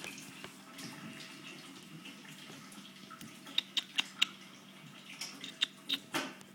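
Close rustling of a blanket and handling noise against the microphone, with a quick run of four sharp clicks about three and a half seconds in and a few more near the end.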